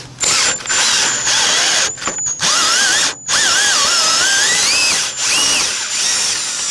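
Power drill in its higher-torque first gear spinning out the long-threaded T50 Torx hub bolts, its motor whine rising and falling with load. It stops briefly three times.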